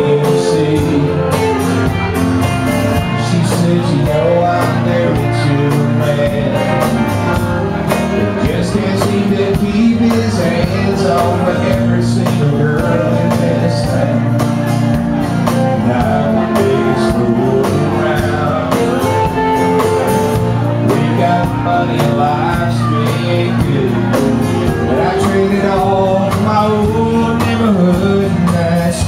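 Live country band playing a song: male lead vocal over strummed acoustic guitar, electric guitar, electric bass and drums, at a steady level.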